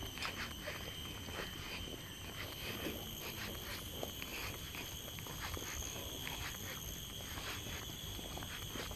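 Footsteps on a paved forest trail, with insects giving a steady high-pitched drone throughout.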